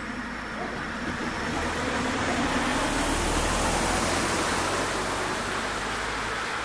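A car driving past over the level crossing: tyre and engine noise swells to a peak about three to four seconds in, then slowly fades.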